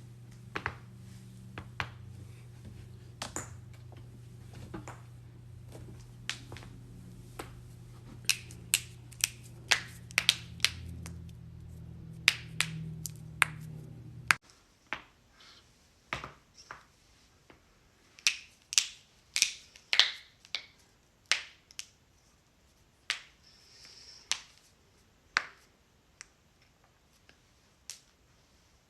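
Joints cracking: dozens of sharp, brief pops at irregular intervals, some in quick runs. A steady low hum lies under the first half and stops abruptly about halfway through.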